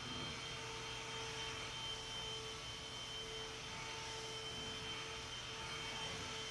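Steady background hum and hiss with a faint high whine held on a few unchanging pitches. Nothing starts or stops.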